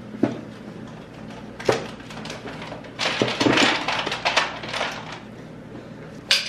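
Things being moved about on the shelves of an open refrigerator: a couple of knocks, then a burst of clattering and rattling of bottles and containers about three seconds in, quieter shuffling after.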